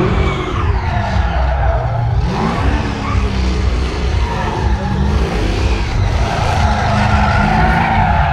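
Car drifting: the engine revs hard while the tyres squeal. The engine pitch climbs near the start and again about two and a half seconds in. The tyre squeal swells in the middle and toward the end.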